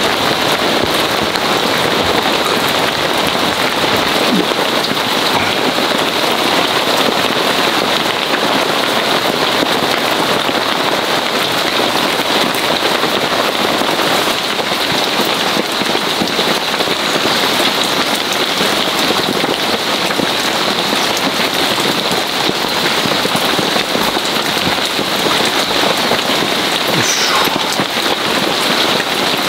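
Heavy rain falling steadily on a canvas tent overhead.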